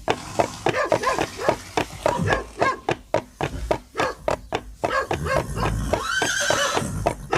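Horse hooves clip-clopping in a steady run of knocks, with one horse whinny about six seconds in.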